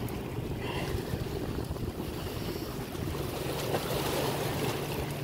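Wind buffeting the microphone over choppy water slapping, with a steady low hum underneath.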